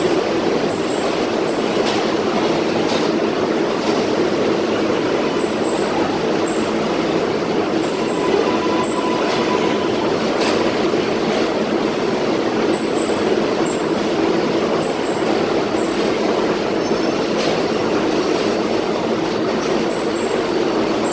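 R188 subway trains standing at the platform with doors open, giving off a steady hum and rushing noise from their on-board equipment.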